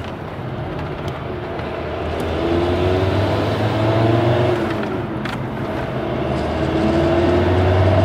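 Car engine and road noise heard from inside the moving car, the engine note rising twice as it accelerates, with a brief dip about five seconds in.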